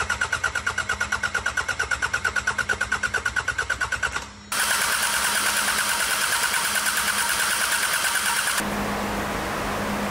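Sabb M4 marine diesel being turned over by its electric starter, a rapid, even pulsing. The cranking stops about four seconds in, starts again half a second later and stops about eight and a half seconds in, leaving a steady hiss. It is cranked to test whether the rebuilt injection pump now delivers fuel.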